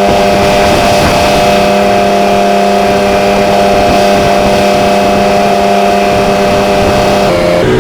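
CAT 329E excavator's diesel engine held at high throttle, running at a steady high pitch, then stepping back down in speed near the end.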